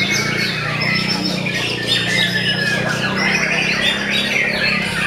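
Several white-rumped shamas singing at once: a dense tangle of overlapping whistles and rapid, varied phrases, with a low steady hum underneath.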